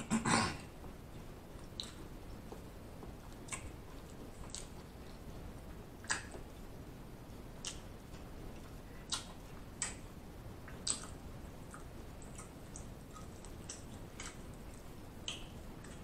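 A person chewing food, with wet mouth smacks and clicks: a louder burst right at the start, then a short smack about every second.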